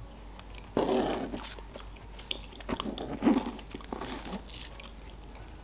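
Close-miked eating sounds: chewing a mouthful of chocolate-almond cake, with a louder burst about a second in, then more chewing mixed with a few sharp clicks of a fork in the desserts.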